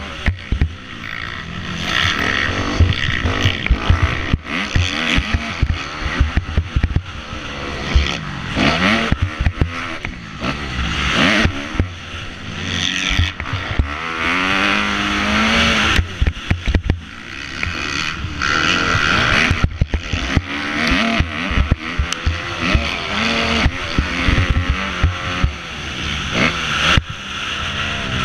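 Motocross dirt bike engine revving hard and falling away again and again as the rider races, shifting and throttling through the turns and jumps, with clattering knocks from the rough track.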